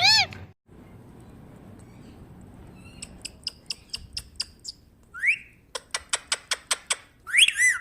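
A parrot calling: two quick runs of short, clicky chirps, a brief rising whistle between them, and a loud rising-then-falling squawk near the end.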